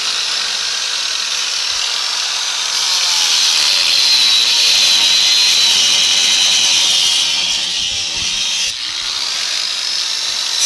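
Small corded electric grinder with an abrasive cut-off disc cutting into the steel sheet metal of a Mazda Miata's engine bay: a steady high whine with grinding. It grows louder a few seconds in and eases briefly near the end.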